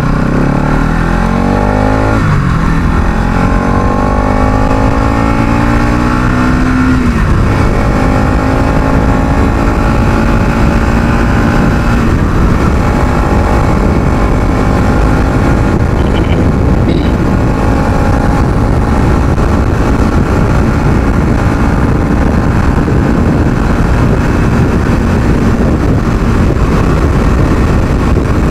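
Bajaj Pulsar NS200's single-cylinder engine accelerating hard: the pitch climbs, drops at an upshift about two seconds in, climbs again, drops at another upshift about seven seconds in, then holds at high revs. Wind rush on the microphone runs underneath.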